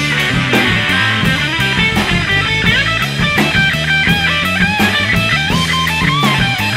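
Rock-and-roll trio playing an instrumental break: a lead guitar solo with bent notes over bass and a steady drum beat.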